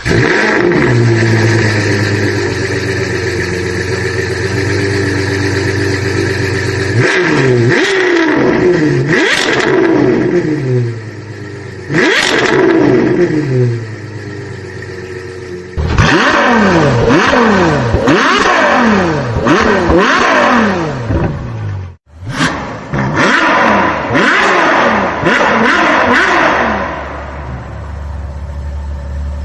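Suzuki Multicab's F6A three-cylinder engine idling, then revved in many quick throttle blips, its pitch rising and falling each time, with a brief break about two-thirds of the way through. The engine has a misfire that is traced to a spark plug wetted by oil leaking past the cylinder head cover O-ring.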